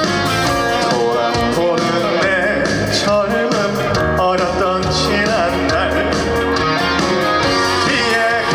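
Live trot song played through a loud sound system: a band with guitar and a steady beat, and a singer's voice with vibrato carrying the melody.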